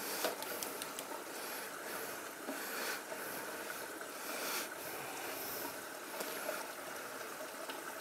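Miele WT945 washer-dryer running its lint-rinse programme: water splashing and trickling in the turning drum, a steady wash of sound with a few faint clicks.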